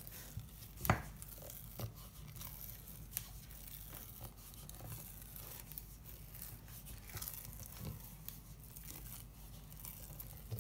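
Hands kneading and squeezing sticky dough in a stainless steel bowl: faint, irregular handling sounds, with one sharper click about a second in.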